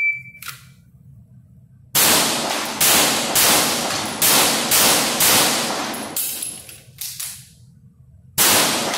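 An electronic shot timer's start beep, then a red dot pistol firing a rapid string of shots, echoing off the concrete walls of an indoor range lane. The shooting pauses for about two seconds before more shots near the end.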